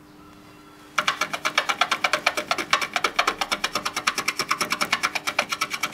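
Small hand-held abrasive block ('diamante') rubbed back and forth over the lacquered body panel of a Vespa Primavera, cutting down a lacquer run. It starts abruptly about a second in, as a fast, even scraping of about ten strokes a second, over a faint steady hum.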